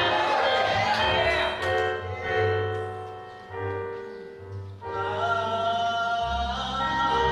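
Music with singing voices held over sustained chords and a bass line.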